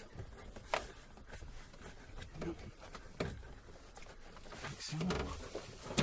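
A few separate light clicks and knocks as car interior parts are handled and fitted back around the centre console, with quiet handling noise between them.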